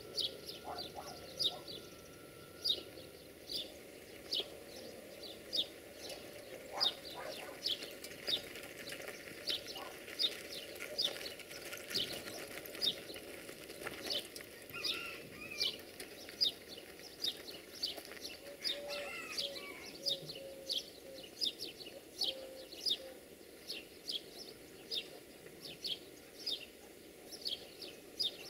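A bird calling over and over, a short falling chirp about twice a second, with another bird's call briefly in the middle. Under it the low rumble of a receding passenger train fades away.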